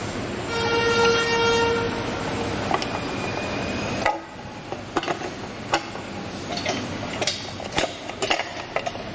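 A horn sounds once, a steady pitched blare lasting about a second and a half, near the start. Later come scattered light clicks and knocks of the traffic light's parts and wire being handled.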